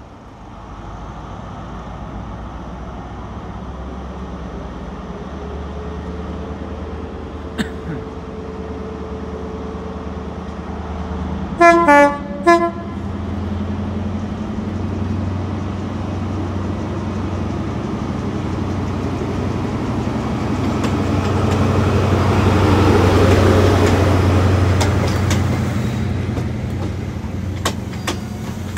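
CrossCountry diesel passenger train pulling out: its diesel engines run up and grow louder as it gets under way. About twelve seconds in, its horn gives two short blasts.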